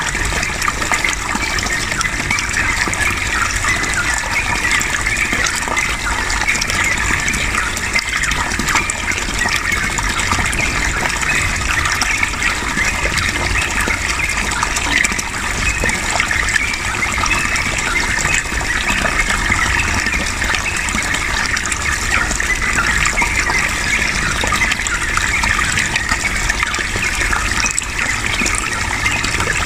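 Flowing water gushing steadily and without a break.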